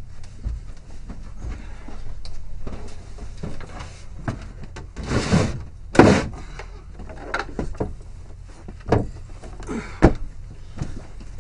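A wooden door is pushed open with a scrape and a loud bang about halfway through. Around it are footsteps and knocks on wooden stairs and floorboards, and a sharp thud near the end.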